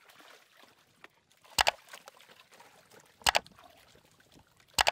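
Three sharp wet slaps about a second and a half apart, each a quick double hit, from freshly netted fish in a hauled-in dragnet.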